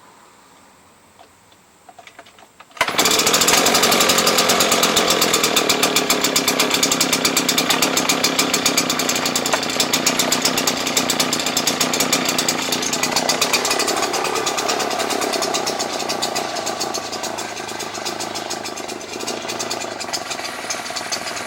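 Husqvarna backpack leaf blower's two-stroke engine starting abruptly about three seconds in and running at high speed with a fast, even firing rhythm and the rush of the fan. It is still on choke, at its first run after a throttle lever and kill-switch repair. The level eases a little over the second half.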